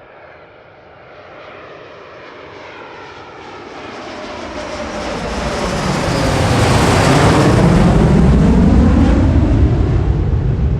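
Jet noise of BAE Hawk jet trainers approaching and passing close in a display flypast. It grows from a distant roar to a loud peak about seven seconds in, then the high hiss fades while a heavy low rumble carries on.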